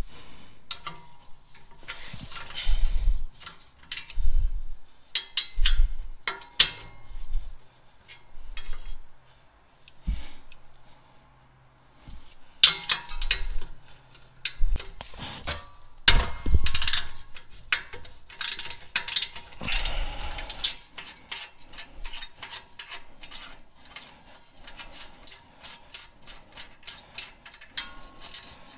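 Hand socket ratchet loosening exhaust flange bolts, with irregular metallic clanks and knocks of tools and metal through the first two-thirds. In the last several seconds it settles into a quick, even run of ratchet clicks, about five a second, as a bolt is spun out.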